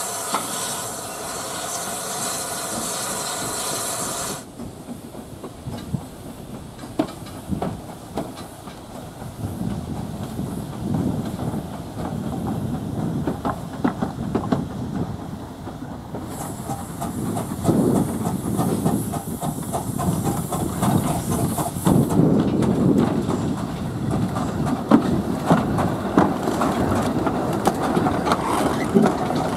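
Steam locomotives working in a station. A loud hiss of steam cuts off suddenly about four seconds in. Wheels then rumble and click over the rail joints, steam hisses again midway, and near the end the rumble and knocking grow louder as the GWR 0-6-0 saddle tank No. 813 moves past close by.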